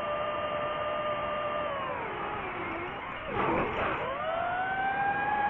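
DJI FPV quadcopter's motors and propellers whining in flight. The pitch drops as the throttle eases off, a short rush of air comes just past halfway, and the whine then climbs back and holds a little higher as the throttle comes up again.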